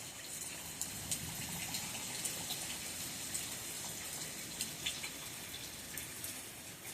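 Steady rain hissing, with scattered raindrops ticking close by.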